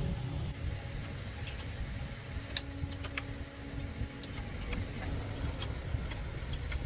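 Repair-work noise: a steady low rumble with scattered sharp clicks and knocks, and a faint steady hum through the middle.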